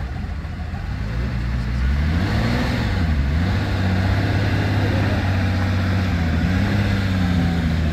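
Lamborghini Countach V12 engine running at low revs. A throttle blip about two to three seconds in sends the note up and back down, and then it settles into a steady, deep idle.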